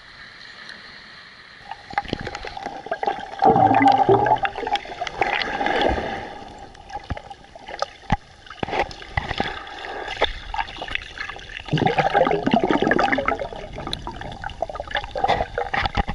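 Sea water gurgling and sloshing over a waterproof camera as it goes under the surface and breaks out again, with splashes and bubbling; it grows loud about two seconds in.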